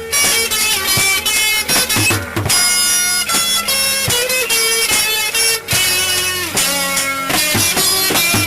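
Music: an instrumental passage led by guitar, with no singing.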